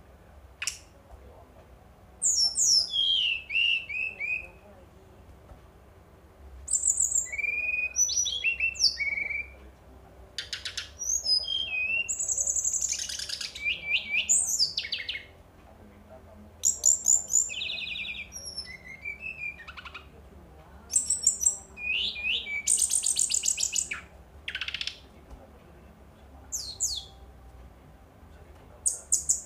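Brown-chested jungle flycatcher (sikatan rimba dada coklat) singing in separate bursts, about seven in all. Each burst is one to four seconds of rapid high trills and quick falling whistled notes, with short pauses between.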